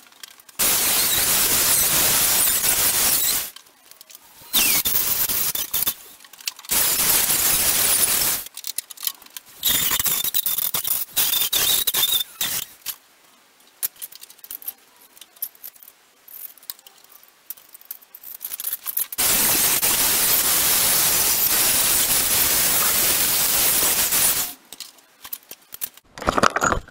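Angle grinder cutting through the sheet steel of a Rover SD1's rear sill and wheel arch. It runs in five bursts of a few seconds each, the longest about five seconds near the end.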